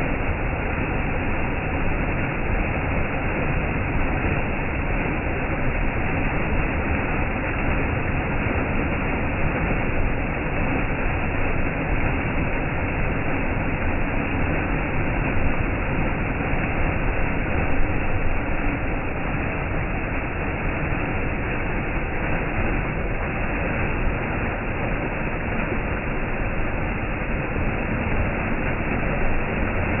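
Small stream of water gushing down a short, steep drop and splashing onto earth and stones: a steady, loud rush of falling water.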